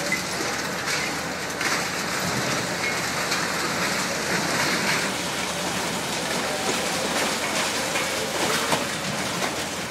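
High-reach demolition excavator crushing a concrete building: a steady crackling, crunching hiss of breaking concrete and falling debris, with many irregular sharp cracks.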